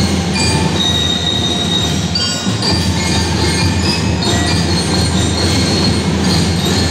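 A school band playing in a packed arena, recorded loud and harsh. High, ringing bell-like mallet-percussion notes are held over a dense wash of drums and crowd noise.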